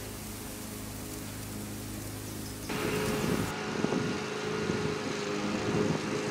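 Steaks and pork chops sizzling on a charcoal grill, a steady hiss. About three seconds in, this gives way to a riding lawn mower's engine running at a distance.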